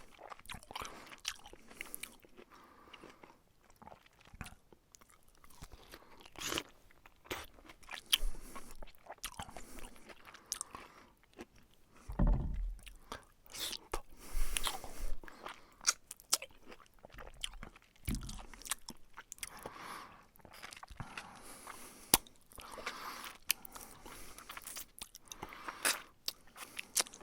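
A person biting and chewing food: irregular clicks and mouth noises throughout, with a couple of heavier low knocks about twelve and eighteen seconds in.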